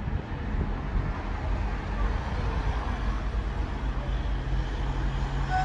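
Steady road traffic noise with wind buffeting the microphone. An engine hum from a passing vehicle comes in about halfway through.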